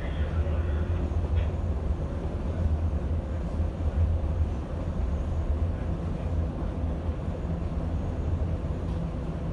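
Ride noise inside a moving CTA 1-50 series rapid transit car: a steady low rumble from the running gear on the track, with a faint steady whine over it.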